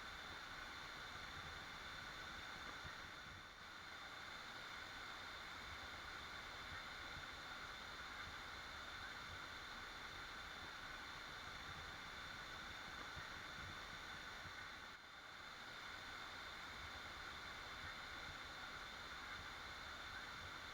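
Waterfall: a steady, even rush of falling water that dips briefly twice.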